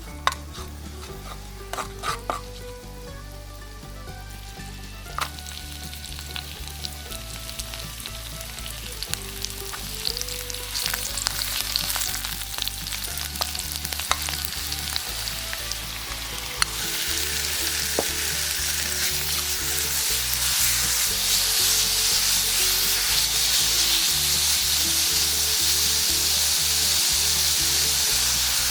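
Food sizzling as it fries in a hot pan, with a utensil stirring and scraping and clicking against the pan. The sizzle grows louder about two-thirds of the way through.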